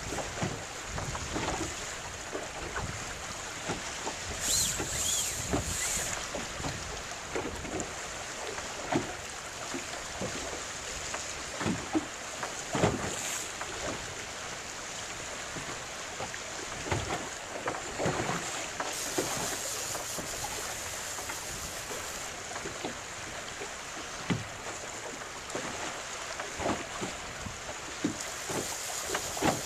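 Choppy waves slapping and splashing against the hull of a small boat, with irregular knocks, over steady wind rushing on the microphone.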